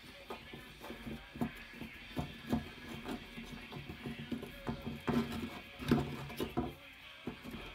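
Irregular clicks and knocks of small plastic and metal parts as a Traxxas Revo's rear bulkhead and differential housing are taken apart by hand, with a hex driver working on its screws.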